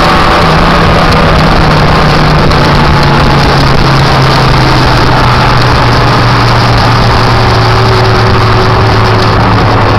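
Motorcycle riding at a steady road speed: a constant engine drone under loud wind rush on the microphone. The engine note drops slightly in pitch over the first half.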